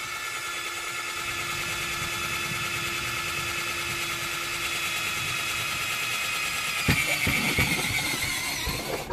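Cordless drill running steadily, its bit enlarging a hole in the van's sheet-metal roof. About seven seconds in a few knocks come through and the pitch sags a little as the bit loads up, then the drill stops at the very end.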